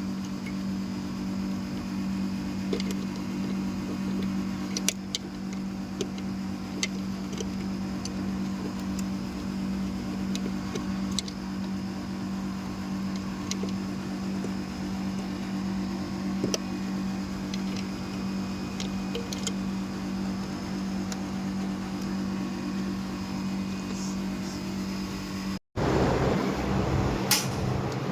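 HVAC package unit running: a steady low hum with scattered light clicks. After a brief cut near the end, a louder rushing noise follows.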